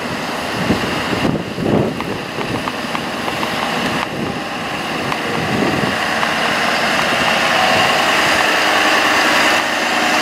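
Ford F-550 bucket truck's engine running as the truck drives slowly across a gravel lot and pulls up close, growing louder toward the end. Wind buffets the microphone a few times in the first half.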